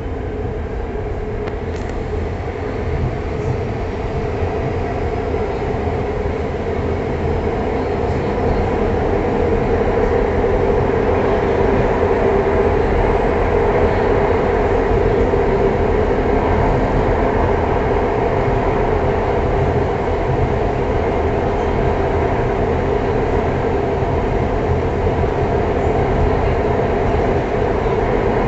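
Driverless metro train running through a tunnel, heard from inside the front car: a steady rumble of the running gear with a constant mid-pitched hum, growing louder over the first ten seconds or so and then holding level.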